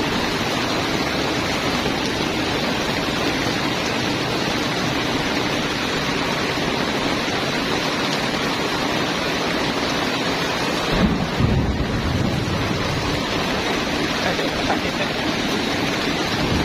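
Heavy rain falling in a steady hiss. A brief low rumble rises about eleven seconds in.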